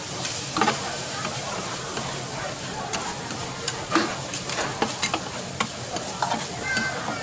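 Food sizzling as it fries, with irregular clinks and knocks of utensils stirring it.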